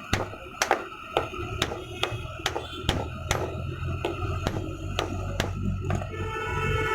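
Repeated hammer-like knocks on metal, about two a second and fairly even, over a steady low hum.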